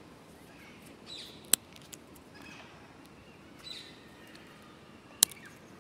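A dry twig cracking sharply close to the microphone, twice, about a second and a half in and again near the end, with a few faint bird chirps between.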